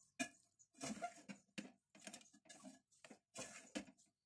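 Faint, irregular clinks and scrapes of a metal spatula against an aluminium pot as sauce-coated spaghetti is tossed and mixed, about one or two knocks a second.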